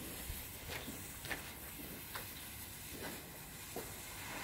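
Lit fuse of a 1.3G rocket firework burning with a faint fizzing hiss and a soft crackle about once a second.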